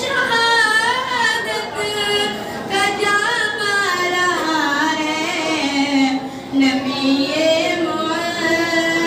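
A young woman singing a naat, an Urdu devotional poem, solo and unaccompanied through a microphone, drawing out long wavering notes.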